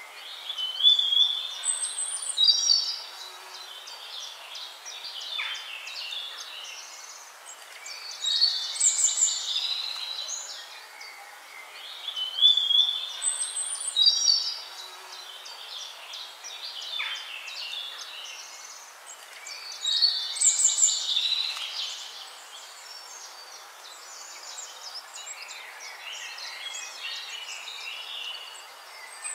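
Birds chirping and singing in bursts a few seconds apart, with quieter twittering between them. The same phrases come back about every eleven to twelve seconds.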